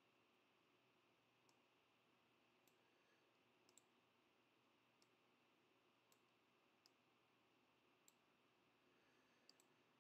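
Faint computer mouse clicks, about ten of them at irregular intervals, over near silence.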